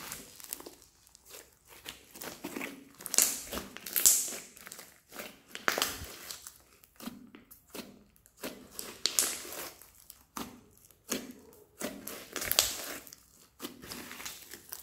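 Hands squeezing and pressing a large lump of crunchy foam-bead slime, giving irregular crackling, squishing bursts every second or two.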